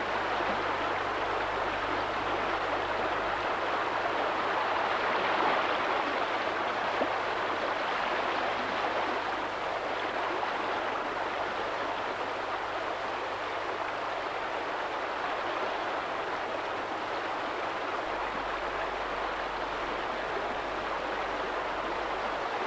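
Rushing river water, a steady even rush that swells a little about five seconds in.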